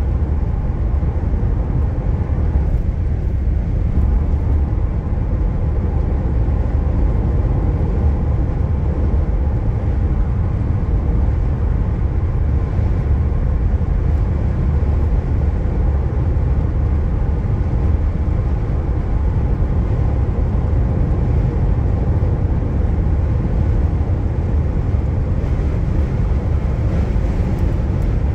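Steady low rumble of a car driving at highway speed, heard from inside the cabin: tyre, road and engine noise.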